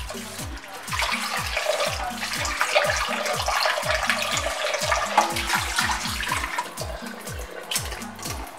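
Tap water pouring into a glass bowl of raw goat meat in a stainless steel sink, with splashing as hands rub and rinse the meat pieces under the stream.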